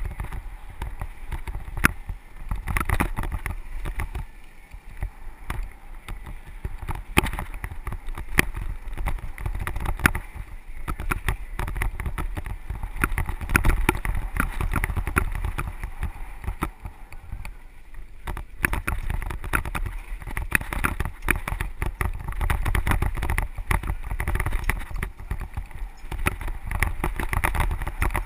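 Mountain bike rattling and clattering as it rides fast down a dry dirt trail, with many irregular sharp knocks as it goes over bumps. A steady low rumble of wind on the microphone runs underneath.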